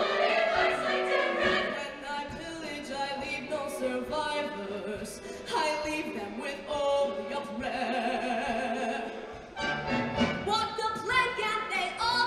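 Large show choir of male and female voices singing together.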